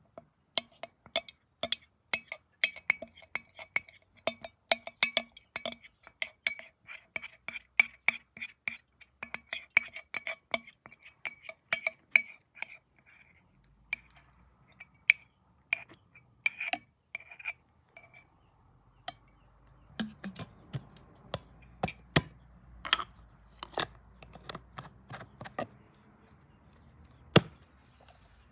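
A metal spoon clinking rapidly against a glass honey container as the last of the honey is scraped into the jar, each clink ringing at the same pitch. It then stops, and a few scattered knocks and handling sounds from the glass jar follow.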